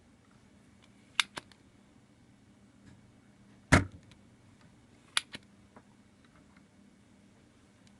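Sharp clicks and taps of tools on a circuit board, a pair about a second in, a louder knock near the middle, and another pair a little after, over a low steady hum.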